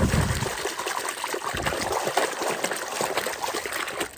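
Water running and splattering over a muddy plastic toy as it is washed clean.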